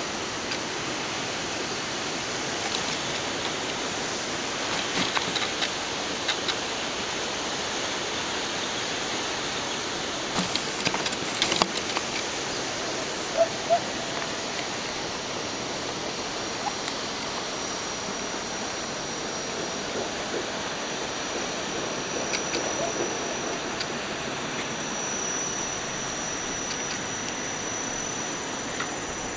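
Steady rushing of waterfalls pouring down limestone cliffs, heard from a distance as an even hiss. There are a few sharp clicks in the first half, and a faint high steady tone in the last third.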